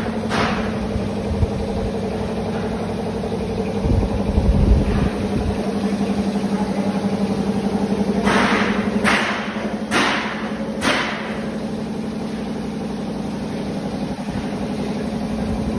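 Gulkand mixer machine running, its motor and drive giving a steady hum, with low thuds about four seconds in and a few short rushing scrapes about eight to eleven seconds in.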